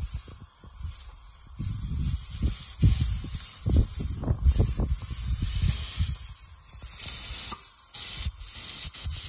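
Marinated pork belly and pork chops sizzling on a charcoal grill as marinade is brushed over them: a steady hiss. A run of low thumps comes in the middle seconds.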